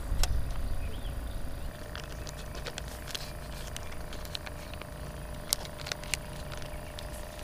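Steady low hum of a boat's electric trolling motor with a thin whine, with scattered light clicks.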